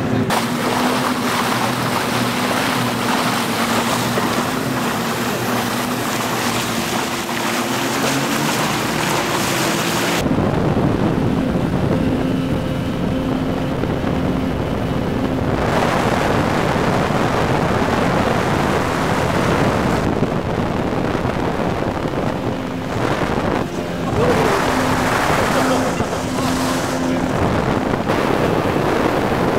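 Motorboat running at speed: a steady engine hum under wind rush and water noise from the hull, the rushing sound easing about ten seconds in and rising again in patches.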